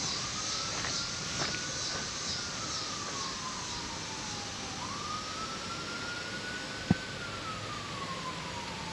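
A siren wailing: one clear tone rising, then falling slowly, in two long cycles of about five seconds each, over a steady high hiss. There is a single sharp click about seven seconds in.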